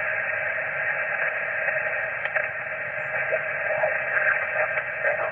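Yaesu HF transceiver receiving upper sideband on the 20-metre band while being tuned down the dial: a steady hiss of band static, cut off above about 3 kHz by the receiver's passband. From about two seconds in, short wavering, garbled tones drift through the noise as the dial passes signals, with band conditions poor.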